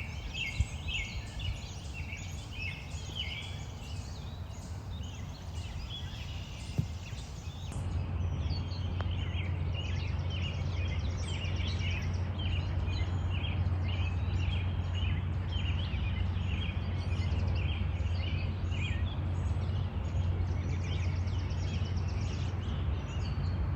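Birds singing and chirping in repeated short calls over a steady low hum, with a sharp click about half a second in and another about seven seconds in.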